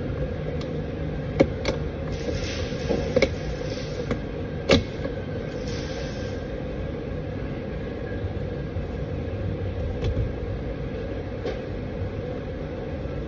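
Plastic trim clips snapping loose as a door trim piece is pried off with a plastic pry tool: a few sharp clicks in the first five seconds, over a steady shop hum.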